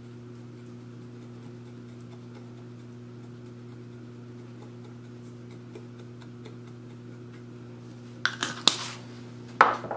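Steady low hum with faint light ticks as a glass spice jar is shaken over shrimp in a glass bowl. A few sharp clicks and knocks near the end as the jar and its lid are handled.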